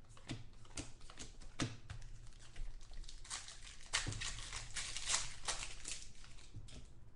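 Trading cards being handled by hand: irregular light clicks and slides of card stock, with louder rustling and crinkling in the middle.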